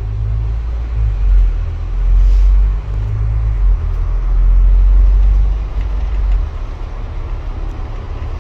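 Low rumble of an Ulster Bus's engine and running gear heard from inside the moving bus. It swells and eases as the bus drives and turns, and is lighter after about six seconds.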